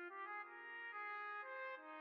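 Background music of held, overlapping notes that step to new pitches every half second or so, like a slow brass or synth-horn melody.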